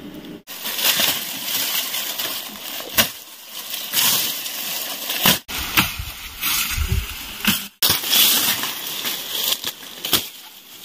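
Dry grass stalks rustling and crunching as a stand of tall grass is cut down by hand, with a sharp crack every second or two.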